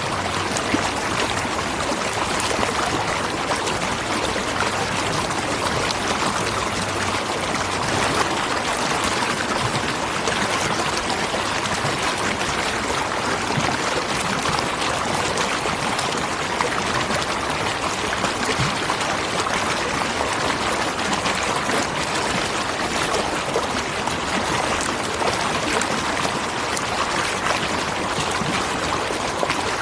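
Waterfall and rushing stream water, a steady even rush without pause.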